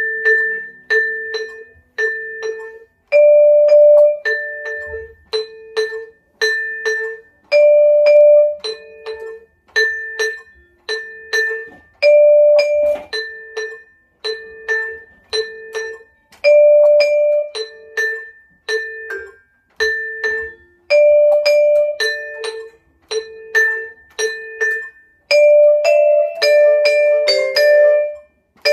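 Vibraphone played with yarn mallets: a steady figure of single ringing notes, roughly one a second, a repeated lower note alternating with a higher note that is held longer every few strokes. Over the last few seconds the notes come faster and overlap.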